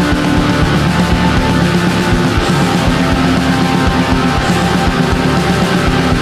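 Loud, heavy rock music with distorted electric guitar and a steady driving beat.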